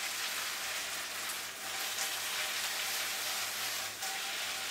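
Food frying in olive oil in a frying pan, a steady sizzle.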